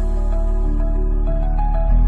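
Background music: a calm new-age piece with sustained notes stepping between pitches over a steady bass.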